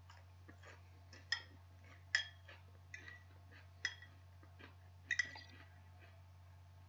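Eating utensil clinking and tapping against a dish, a series of light clicks with a few louder clinks that ring briefly, one pair close together about five seconds in. A steady low hum runs underneath.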